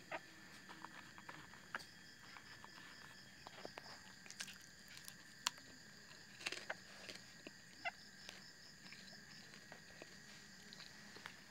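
A faint, steady chorus of crickets, high-pitched and continuous, with one voice breaking into a fast pulsing trill twice. Scattered short clicks and taps sound over it, the sharpest about halfway through.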